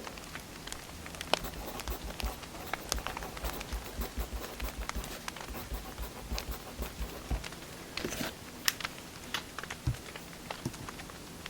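Burning firewood crackling, with irregular sharp pops and snaps over a soft steady hiss.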